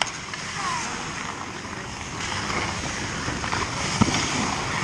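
Ice hockey play in an indoor rink: a steady hiss of skates on the ice and arena ambience, with a few sharp clacks of sticks or puck, the loudest about four seconds in.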